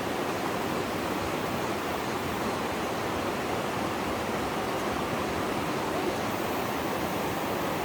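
Mountain stream rushing steadily over rocks, a constant loud wash of water.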